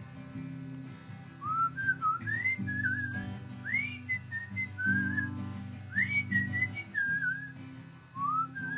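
Background music: a whistled tune of quick upward slides and short wavering notes over a low, steady chordal accompaniment.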